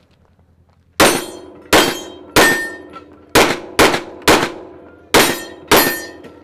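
Eight handgun shots fired in quick succession, in groups of about three, three and two, each one sharp and loud with a short ringing tail.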